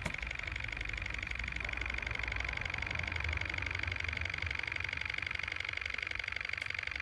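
Wiggers Stiwi 2 model Stirling engine running steadily, its piston, displacer and flywheel linkage giving a fast, even mechanical rattle with a high-pitched hum.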